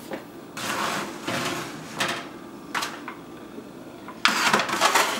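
Disposable aluminium foil baking pans crinkling and scraping as they are slid onto a metal oven rack: a series of short rustling scrapes, the loudest cluster near the end.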